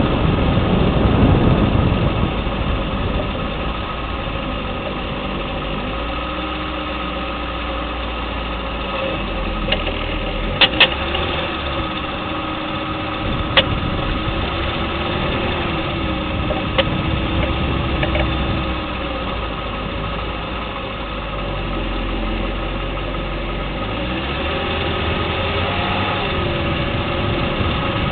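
2010 Lexus LS 460L with its engine running, a steady hum with a wavering whine, broken near the middle by a few sharp clicks: a quick pair, then two single ones a few seconds apart. The clicks are the suspension clicking that the owner suspects comes from the lower control arm or steering knuckle.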